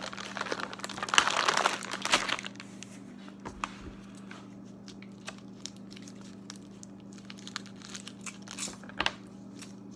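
Plastic candy bag and Tootsie Roll wrappers crinkling as the candies are taken out and unwrapped. The rustling is dense for the first two seconds or so, then gives way to faint scattered crackles as the wrappers are untwisted.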